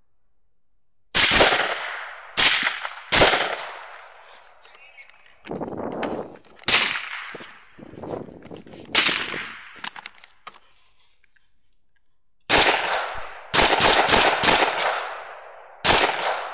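Rifle fired repeatedly at feral hogs: about ten sharp shots, each trailing off, with a fast string of four in under a second near the end.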